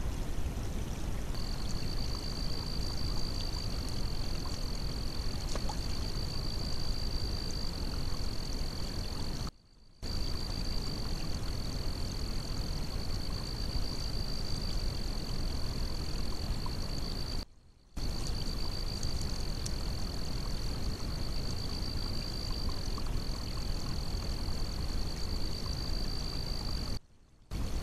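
Trail camera audio: a steady high-pitched whine over a constant hiss, cut off briefly three times where the camera's clips join.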